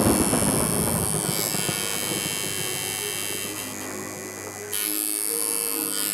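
Tattoo machine buzzing steadily with an electrical hum, then cutting off about four and a half seconds in.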